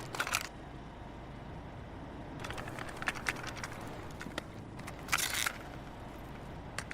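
Quiet gap between songs: a faint steady noise floor with a few short bursts of hiss or rustle, one early, a cluster in the middle and one about five seconds in.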